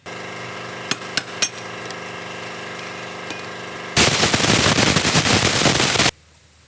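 A power tool running steadily with a few sharp clicks, then a much louder noisy burst of about two seconds that cuts off suddenly.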